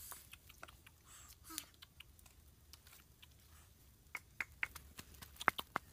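Wooden pestle pounding red chili peppers in a stone mortar. Light clicks and rustles at first, then a run of sharp, irregular knocks from about four seconds in.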